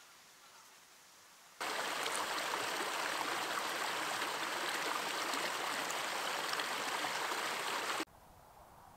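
Rushing water, steady and loud, cutting in suddenly about a second and a half in and cutting off just as suddenly about eight seconds in.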